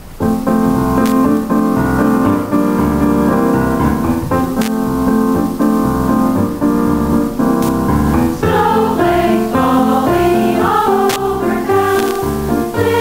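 Music starts abruptly: a keyboard accompaniment of held chords over a steady bass beat, with a higher melody line coming in about eight seconds in. A sharp tick cuts across it every three seconds or so.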